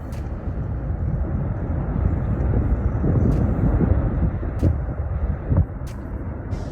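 Wind buffeting the microphone outdoors: an uneven low rumble that swells and dips, with a few faint clicks.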